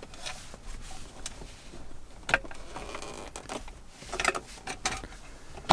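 Hard plastic centre-console trim cover of a 100 Series Land Cruiser being lifted free and handled: a few sharp plastic clicks and knocks with light rustling between them.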